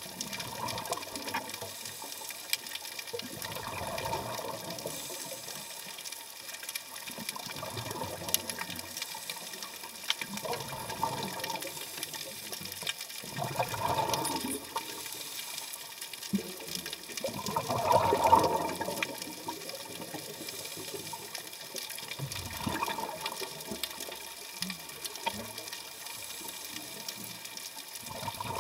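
Scuba regulator exhalations underwater: bursts of bubbles gurgle out every three to four seconds, the loudest about eighteen seconds in, over a steady faint hiss.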